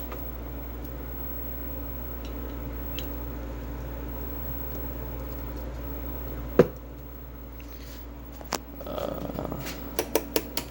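Steady low electrical hum with a buzzy stack of mains overtones, then a sharp click about two-thirds of the way through, after which the hum drops away. Another click follows, then some handling noise and a quick run of sharp clicks near the end.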